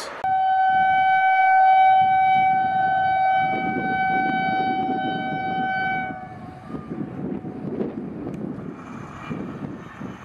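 Horn of an approaching WAP-5 electric locomotive: one long single-note blast held for about six seconds, then the rumble of the train running on the track.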